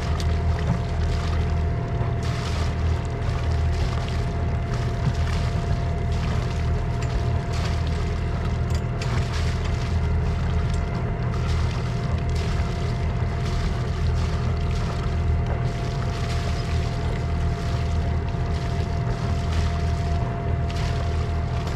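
A sailboat's inboard auxiliary engine runs steadily while the boat motors with its sails furled. It makes a constant low drone with a thin steady tone above it.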